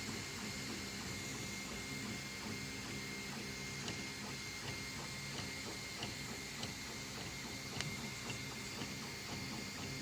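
Anet A8 3D printer printing: its stepper motors hum in shifting tones as the print head moves, over a steady fan whine and scattered light clicks.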